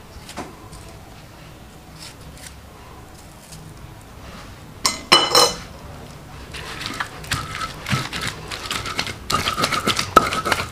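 A metal utensil clanks with a ringing note against a pan about halfway through. Then comes a run of quick scraping and clattering strokes as a spatula stirs in the pan.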